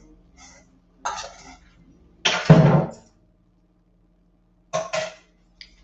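A person coughing once, loudly, about two and a half seconds in, with a few shorter breathy sounds before and after, over a faint steady hum.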